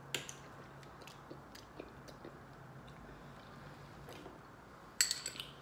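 Faint chewing with small scattered clicks of eating. Near the end comes a quick run of ringing clinks as a metal fork strikes a dish.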